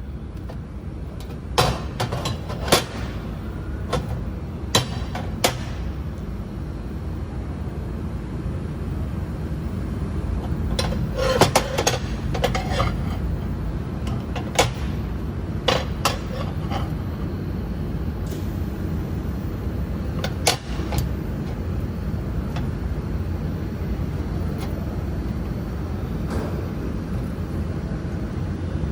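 Steady low machine hum with irregular sharp clicks and knocks, about a dozen of them, most in the first twenty-one seconds.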